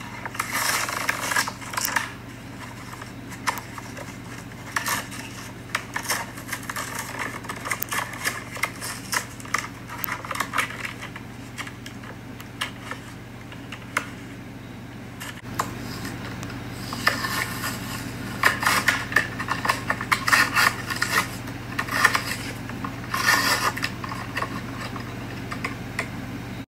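Stiff clear plastic blister packaging of a diecast toy car being handled and opened: irregular crackles, clicks and scrapes of plastic, busier in the second half, over a steady low hum.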